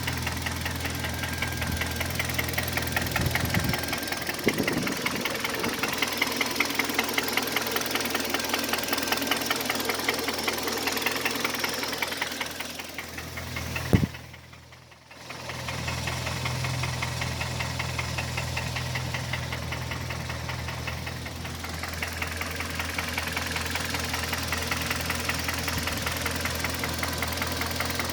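Hyundai/Kia G4KD 2.0-litre four-cylinder petrol engine running hot with a rapid, steady knock from inside the engine. About halfway through there is a sharp click, and the sound drops away for a second or so before the running engine is heard again.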